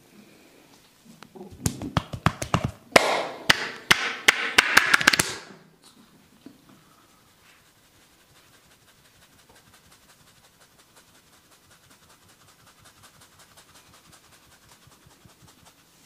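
Hands working the hair and scalp in a head massage: a loud, rapid run of sharp snaps and slaps with rough crackling, typical of hair cracking, lasting about four seconds and stopping abruptly. After it comes a faint, fast, even rubbing and scratching of fingers in the hair.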